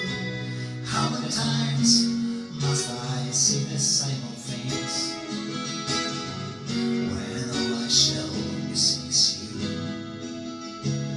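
Acoustic guitar strummed in a slow song, with repeated strokes over ringing chords.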